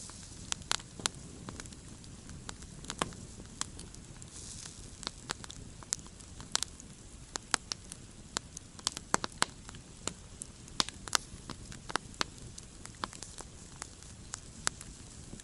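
Wood campfire crackling: irregular sharp pops and snaps, at times several a second, over a low steady rumble of the flames, with a brief hiss at the start and again about four seconds in.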